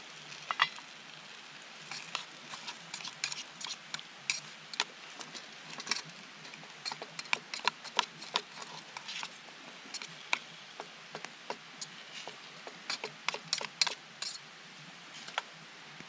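A spatula scraping and clicking against a metal camping pot as diced potatoes are stirred: many short, irregular scrapes and taps over a steady sizzling hiss from the pot on the stove.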